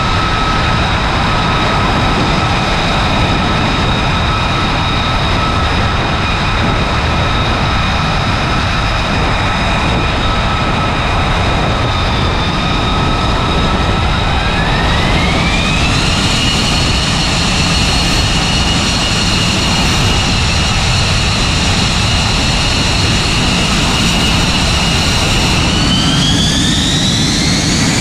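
An F-35B's jet engine runs close by with a loud rush under a steady high whine. About fourteen seconds in, the whine climbs in pitch over a couple of seconds and holds, then climbs again near the end as the engine spools up with its lift-fan doors open.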